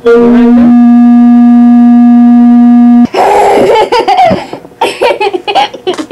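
A loud steady tone for about three seconds, cutting off suddenly, followed by a young girl laughing.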